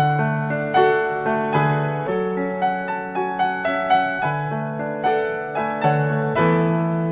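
Background piano music: a gentle melody of single notes struck about twice a second, each fading away, over sustained low bass notes.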